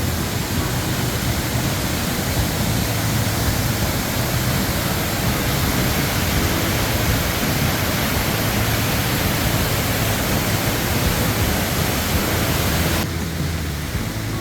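Waterfall's rushing water, a steady full roar; about a second before the end it turns duller and a little quieter.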